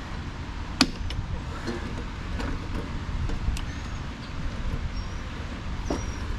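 A few clicks and light knocks from hands and tools working a rubber drive belt over a snowblower's metal pulleys, one sharp click about a second in, over a steady low rumble.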